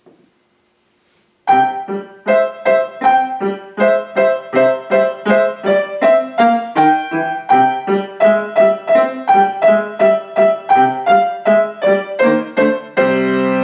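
Piano played in short, detached, pecking notes at about three a second, with both hands, after a moment of silence. It ends on a longer held chord.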